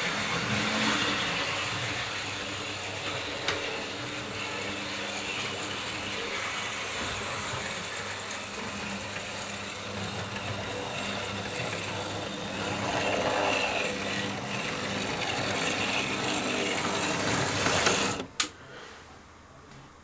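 00 gauge model train running on its track: a steady whirr of the electric motor and wheels, swelling a little as it approaches, which cuts off suddenly near the end with a sharp click as the train comes to a stop at the platform.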